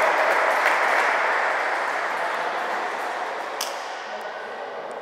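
Cheering and clapping echoing round a sports hall after a futsal goal, dying away slowly over a few seconds. A single sharp knock sounds about three and a half seconds in.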